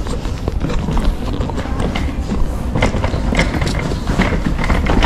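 Footsteps and clattering knocks over a steady low rumble, the knocks coming thicker from about halfway through, with faint voices behind.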